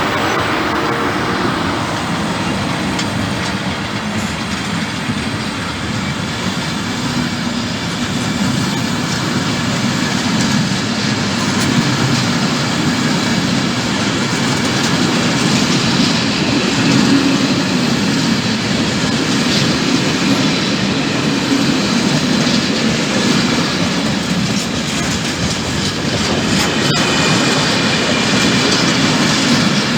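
Freight train wagons rolling past on the track, with a steady rumble and the clatter of wheels over rail joints.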